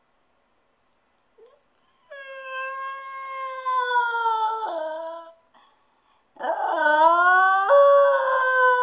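Small dog howling twice, starting about two seconds in. The first long howl slowly falls in pitch. After a short pause a second howl rises and jumps up in pitch partway through.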